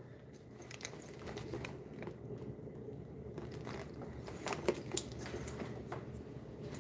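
Thick Mulberry leather bag being handled: faint rustling with scattered small clicks of its buckles and hardware, the loudest a little before and at about five seconds in.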